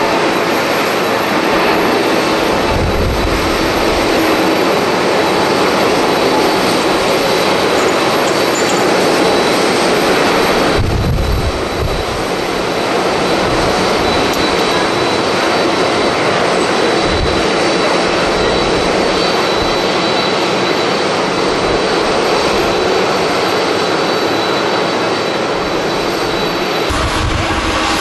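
Jet airliner's engines at takeoff power during the takeoff roll and climb-out: a loud, steady rush. Wind gusts buffet the microphone a few times with low rumbles.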